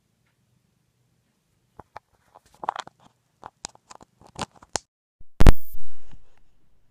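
Phone microphone being handled: scattered clicks and scrapes of fingers on the phone, then about five and a half seconds in a very loud distorted blast right against the microphone that dies away within a second.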